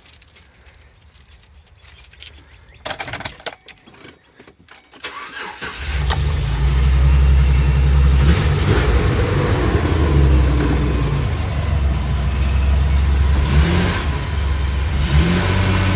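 2008 Chevrolet Express van engine starting up about six seconds in after a few faint clicks, then running steadily, with a brief rise in revs near the end. It runs after a repair aimed at a cylinder 1 misfire, and the owner finds it a lot better so far.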